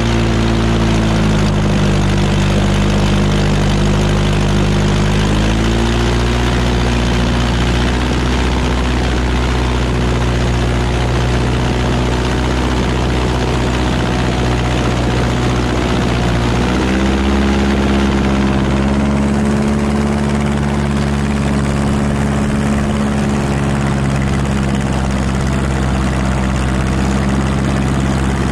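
Airboat's Continental O-200 aircraft engine and propeller running at speed. The engine note dips about a second in, comes back up around six seconds, and steps up again a little past halfway.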